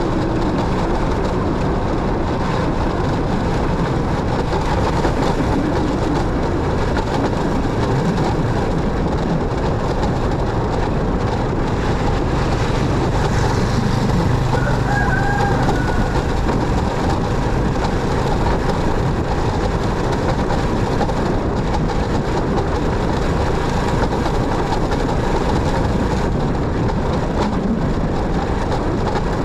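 Motorcycle on the move: steady engine, road and wind noise, with a short high call about halfway through.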